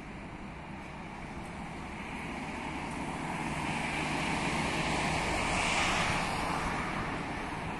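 Boeing 747 cargo jet's four engines on landing approach: a steady rushing jet noise growing louder as the aircraft nears, loudest about six seconds in.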